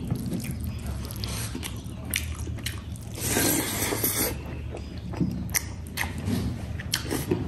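Close-up eating sounds: chewing and wet mouth smacks of someone eating rice and curry by hand, with a denser stretch of squelching about three seconds in. A steady low hum runs underneath.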